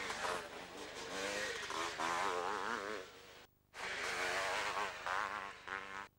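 500cc two-stroke motocross motorcycle engines revving hard, their pitch swinging up and down as the throttle is worked, with a brief silent break about three and a half seconds in.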